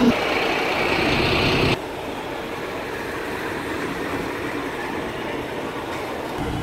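Diesel bus engine running at low speed while the bus moves slowly, as a steady even rumble. The sound changes abruptly and grows quieter about two seconds in.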